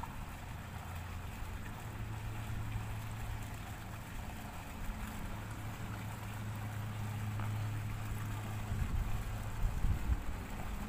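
A steady low motor hum with wind buffeting the microphone, the gusts strongest near the end.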